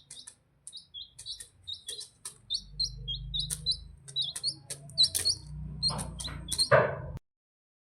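Turkeys chirping: repeated short high chirps, each with an upward hook, a few a second. Under them a low rumble sets in about two and a half seconds in. A louder, fuller call comes near the end, and then the sound cuts off abruptly.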